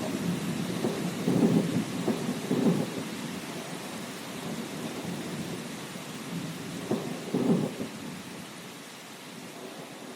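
Thunderstorm: steady rain with rolling thunder that swells in the first few seconds and again about seven seconds in, then dies away.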